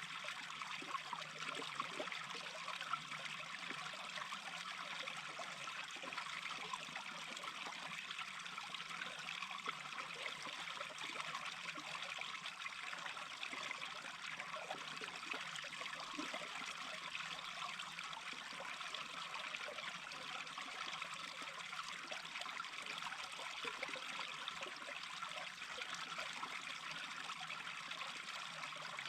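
Small brook babbling: a steady trickle and rush of flowing water.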